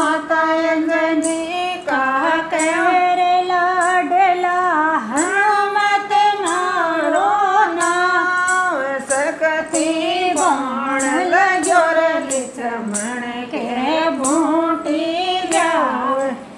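Women singing a Rajasthani devotional bhajan together, with long held, ornamented notes, over a steady light percussion beat.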